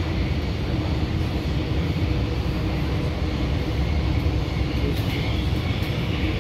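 Gold Coast G:link light-rail tram running at speed, heard from inside the passenger cabin as a steady, even rumble.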